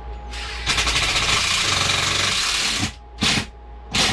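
Cordless power drill driving a screw up into an overhead furring strip: a long run of about two seconds, then two short bursts as the screw is seated.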